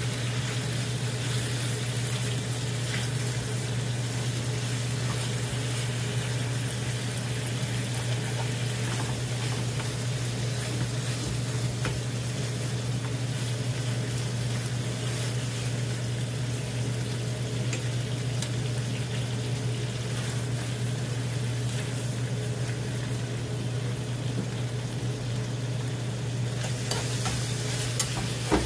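Sliced duck meat and potatoes sizzling in a frying pan while being stirred and turned, over a steady low hum. A couple of sharp clicks come near the end.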